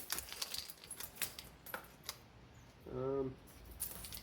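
A worn-out motorcycle roller chain, just taken off an SSR XF250, clinking and rattling in the hands as it is handled, a series of small metallic clicks. About three seconds in comes a brief low hum from a man's voice.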